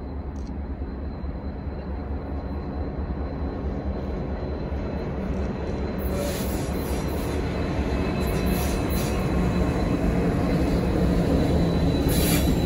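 CN diesel locomotive rumbling as it passes slowly, growing steadily louder as it comes near. From about halfway on, high-pitched wheel squeal and rail noise come in, strongest as the locomotive and the first test cars go by.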